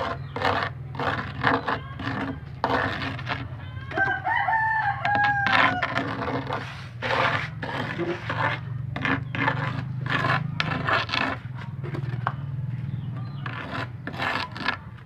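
Paint roller worked back and forth over wet grout-and-sand texture paint, a run of rhythmic rasping strokes. A rooster crows once, about four seconds in.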